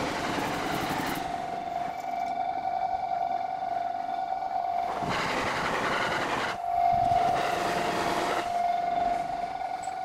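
Electric commuter trains rushing past a level crossing in two swells of rumbling noise, the closer and louder one from about halfway to near the end. Beneath them a steady high ringing tone continues, the crossing's warning bell sounding while the barriers are down.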